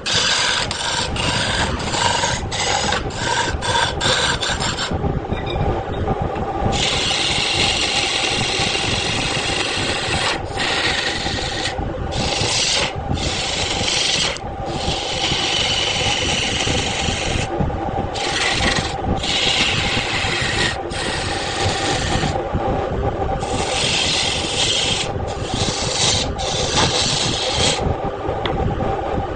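Wood lathe running with a steady hum while a tool is pressed against the spinning wood, scraping in on-off passes. The passes are quick and short for the first few seconds, then last several seconds each with brief breaks.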